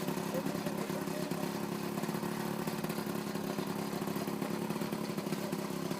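Paramotor engine and propeller running steadily at low revs, the propeller not spinning fast.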